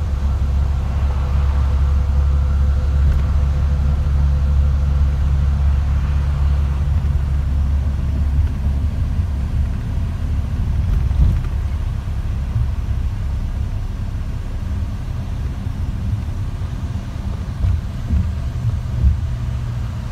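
Low, steady rumble of a car's tyres and engine heard from inside the cabin while driving at road speed, easing somewhat about eight seconds in, with a few brief bumps near the end.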